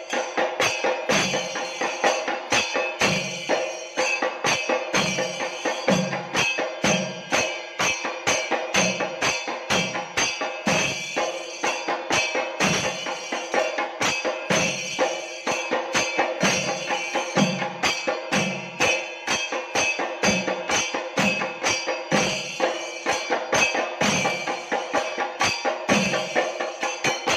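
Temple ritual percussion music: rapid drum and metallic jingling strokes, with a deeper drum beat about once a second, over a steady sustained tone.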